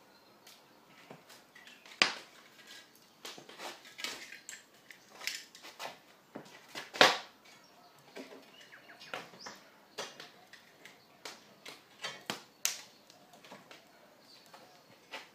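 Scattered metal clicks and knocks from the rotisserie spit's forks and clamps being fastened on a whole pig, with two sharp strikes about two and seven seconds in.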